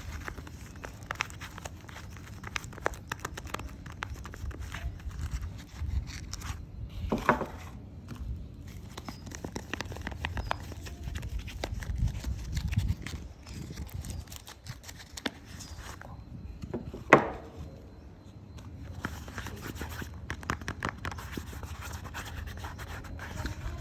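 Bars of soap being handled, unwrapped or cut: scratchy scraping, crackling and many small clicks, with two brief louder squeaks, one about a third of the way through and one about two-thirds through.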